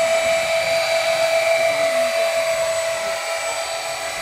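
Radio-controlled model V-22 Osprey's electric motors and twin rotors running: a steady high-pitched whine with overtones, growing a little fainter about three seconds in as the model flies away.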